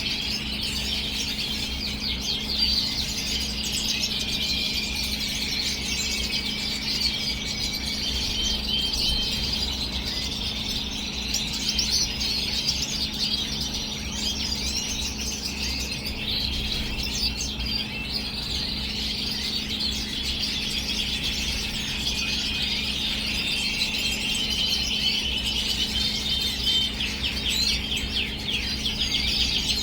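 Several European goldfinches and red siskins chirping and twittering continuously in a busy, overlapping chorus, over a steady low hum.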